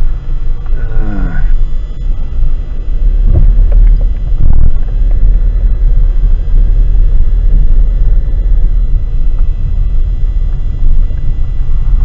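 Car driving slowly over a rough dirt lane, heard from inside the cabin: a steady low rumble of engine and road, with a couple of knocks from the wheels or suspension over bumps a few seconds in.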